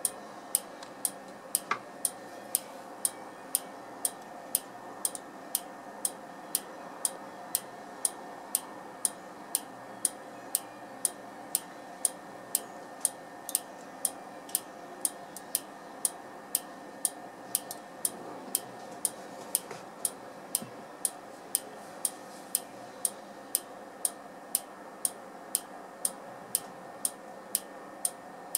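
Prototype Z700U trigger-tube neon clock ticking: sharp, evenly spaced clicks about two a second over a steady hum.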